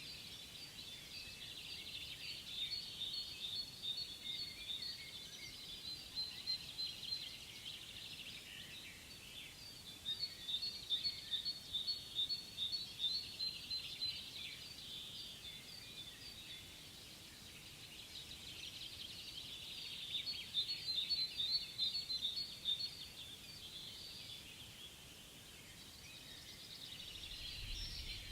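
Small birds singing in quick chirps and trills, coming in three louder bouts over a faint continuous twittering.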